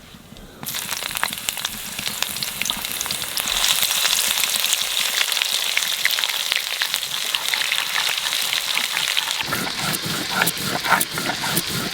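Hot mustard-oil tempering of bay leaves, dried chillies and cumin sizzling and crackling as garlic paste goes into the pan. The sizzle starts suddenly about a second in, is strongest in the middle and dies down near the end.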